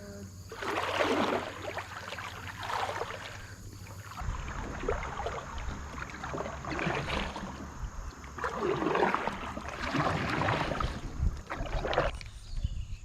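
Kayak paddle strokes dipping and splashing in the river, a regular swell of water noise about every second and a half. A low rumble joins from about four seconds in.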